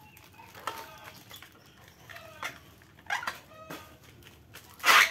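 Scattered clicks and rustles of plastic bags and small plastic cups being handled, with faint chicken clucking in the background.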